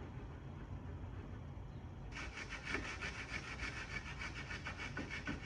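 Fast, steady hand rubbing or scraping on the wood surface of a dresser, starting about two seconds in after a faint low hum.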